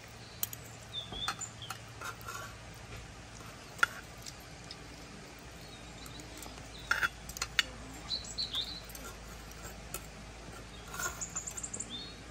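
Fork and spoon clinking and scraping against a metal plate of rice and stew in a series of sharp clicks, the loudest about four seconds in. Birds chirp now and then in the background.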